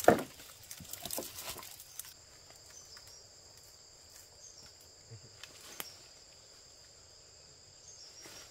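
A sharp knock at the start and a little handling noise for about two seconds. Then a steady, high-pitched chirring of insects, with a few faint clicks.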